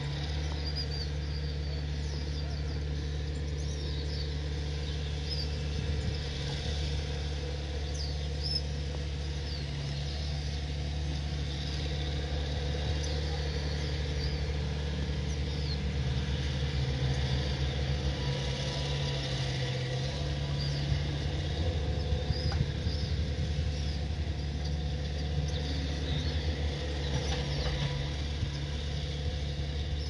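An engine running steadily with a low drone, with birds chirping over it.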